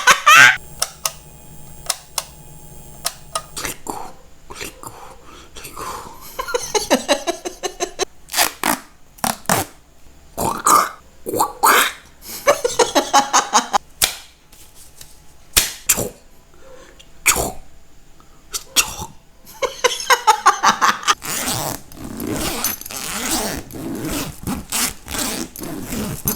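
A man making a string of mouth and throat noises to mimic sounds: sharp clicks, a fast run of clicks, breathy hisses and burp-like throaty bursts, with short gaps between them.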